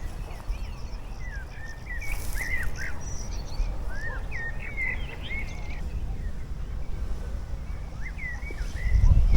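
Small birds chirping and calling in short rising and falling notes, most busily from about two to five seconds in, over a steady low rumble that swells near the end.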